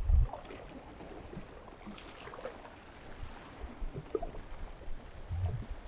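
Water washing and lapping against shoreline rocks, with gusts of wind buffeting the microphone as low rumbles at the start and again near the end.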